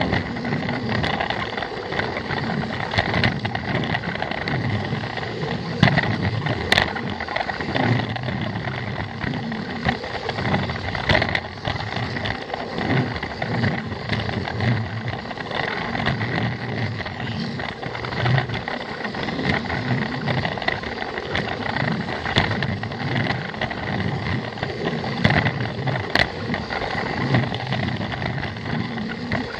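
Plarail toy train's small battery-powered motor and plastic gears whirring steadily as it runs along plastic track, with a few sharp clicks.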